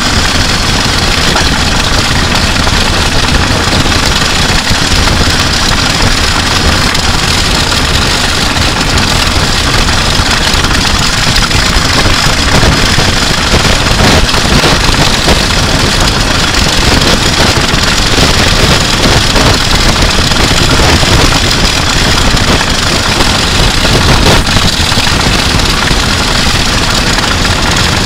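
Electric guitar and bass guitar dragged on ropes over wet asphalt, their pickups recorded through line, together with drum shells scraping along the road: a loud, steady, dense scraping noise with a heavy low end.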